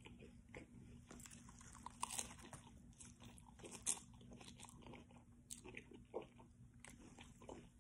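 Faint crunching and chewing of a Doritos Locos taco's hard, crisp shell close to the mouth: a string of short crackles and mouth clicks, the loudest about two and four seconds in.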